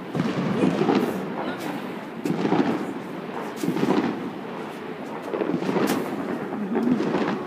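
Fireworks going off in a dense barrage: a constant rumble of booms with sharp pops and cracks scattered throughout.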